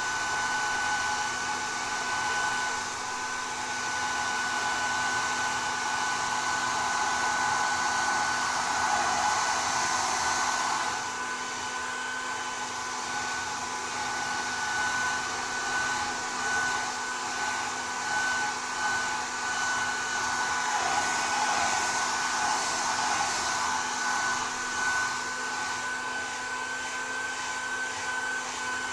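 Hair dryer blowing continuously, with a steady high motor whine over the rush of air; the loudness swells and dips as it runs.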